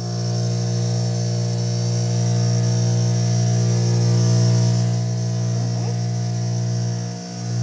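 Cotton candy machine running, its spinning head giving a steady low hum, with a brief dip about seven seconds in.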